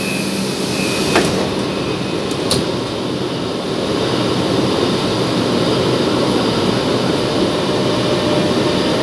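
Inside a metro car at a station: two sharp knocks, about one and two and a half seconds in, as the sliding doors shut, over the steady rush of the car's air conditioning. The train then starts to pull away, the running noise grows, and a faint traction-motor whine begins near the end.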